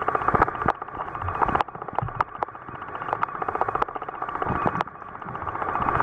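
Underwater sound picked up by a submerged camera: a dense crackling with scattered sharp clicks, dipping briefly in loudness near the middle and growing louder toward the end.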